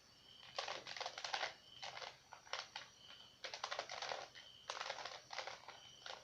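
Plastic Rubik's cube being twisted in quick runs of turns, its layers clicking and rattling in several short bursts, as a move sequence is worked to form the cross on the top face.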